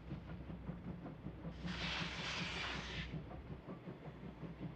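A distant C58 steam locomotive and its train running, with a steady low rumble. About a second and a half in, a burst of hiss starts suddenly, lasts about a second and a half, and stops suddenly.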